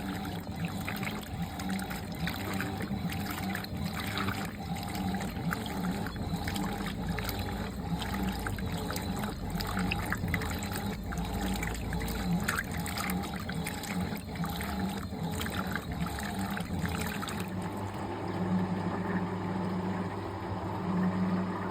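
Fisher & Paykel Pride MW511 top-loading washing machine running with water splashing and trickling in the tub over a steady hum. About seventeen seconds in, the splashing falls away and the hum carries on.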